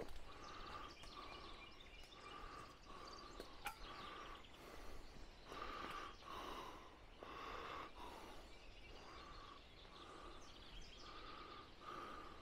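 Faint animal call repeated about once a second, over a quiet outdoor background.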